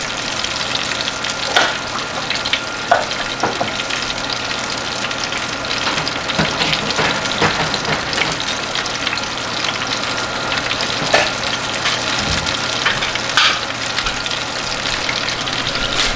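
Whole mandarin fish roasting in a hot oven, its juices and olive oil sizzling steadily with scattered crackles and pops, over a steady hum from the oven.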